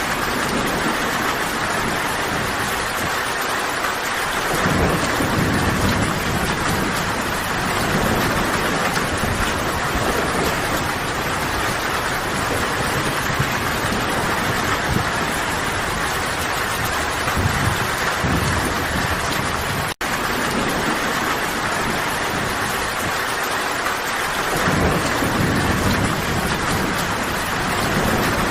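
Steady, heavy rainfall, with low rolls of thunder rumbling a few seconds in and again near the end. The sound cuts out for an instant about twenty seconds in.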